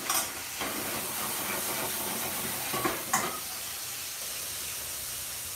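Wet paste sizzling in hot oil in an aluminium frying pan: a sharp burst of sizzle as it hits the oil, then a steady hiss that slowly eases. Two short clicks about three seconds in.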